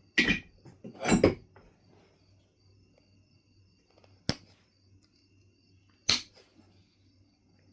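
Knife River Flint being knapped: four separate sharp clicks and knocks of stone being struck or pressed off. Two come close together near the start, the second longer and heavier, then single clicks about four and six seconds in.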